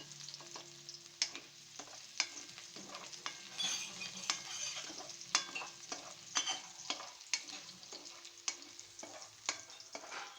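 Garlic sizzling in hot oil in a frying pan while a utensil stirs it, with irregular scrapes and taps against the pan about once a second.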